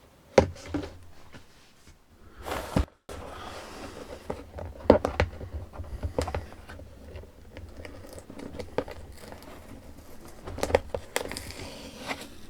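A shower head's box and packaging being handled and opened: intermittent rustling and crinkling with small clicks and knocks.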